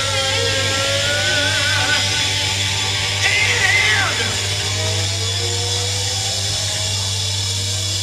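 Live rock band playing, with long wavering electric-guitar or vocal notes over a steady low hum, and a higher note bending up and down about three seconds in.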